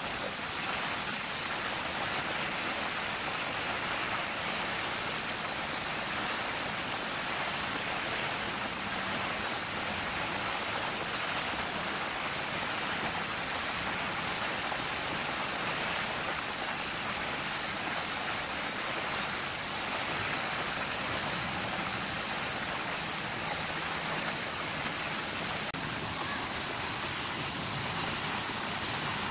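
Steady, unbroken high-pitched drone of a summer cicada chorus.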